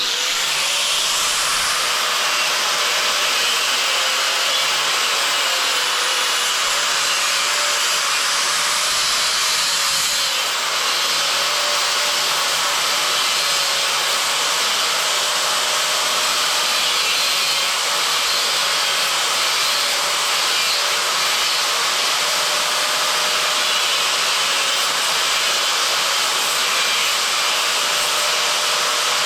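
A motor-driven machine running steadily without a break: an even hiss with a faint wavering hum.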